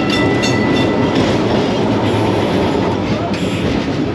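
Electric tram car running along its rails, with a loud rattling rumble from the wheels and the wooden body. A high steady tone sounds over the first second or so.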